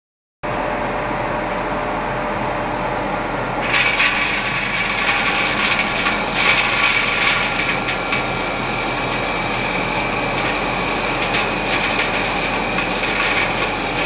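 Colloid mill running steadily with a constant motor drone; about four seconds in, a louder, higher grinding noise joins as material is fed into the hopper and ground between the mill's rotor and stator.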